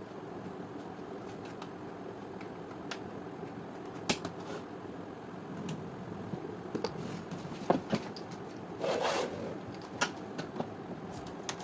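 Scattered sharp clicks and taps of small hard parts being handled, several close together a little past the middle, with a short scraping rustle about nine seconds in, over a steady background noise.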